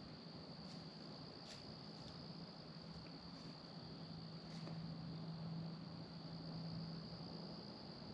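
Crickets or similar insects chirring in one steady high-pitched drone, with a faint low hum underneath that swells slightly partway through and a few faint ticks.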